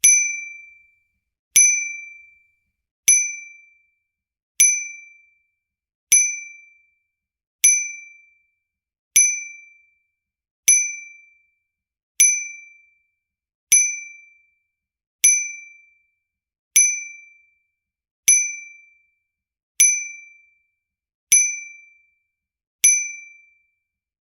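Bicycle bell struck with single dings, repeating evenly about every second and a half. Each ding is a bright ring that dies away within about a second.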